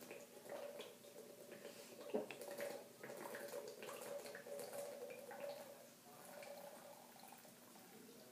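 Water being gulped straight from a plastic bottle: repeated swallows, water sloshing and small clicks from the thin plastic bottle. It is faint and grows quieter after about six seconds.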